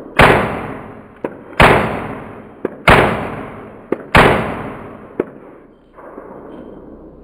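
Four loud shots from a Colt M4 .22LR rifle, about 1.3 seconds apart, each with a long fading tail. Short sharp cracks fall between them.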